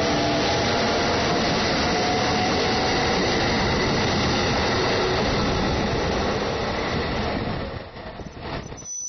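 JR East 253 series electric multiple unit pulling out and running past at close range: steady wheel-on-rail and running noise with a faint whine. The noise drops away sharply about three-quarters of the way through as the last car clears.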